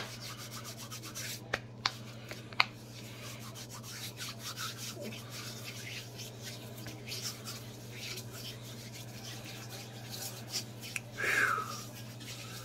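Hands rubbed briskly together, palm against palm, to warm them: a steady dry rubbing with a few sharp clicks in the first three seconds, over a low steady hum.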